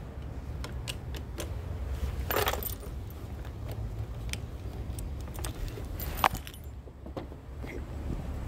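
A bunch of keys jangling and clicking at the scooter's key switch, with a rattle about two and a half seconds in and a single sharp click about six seconds in, over a steady low rumble.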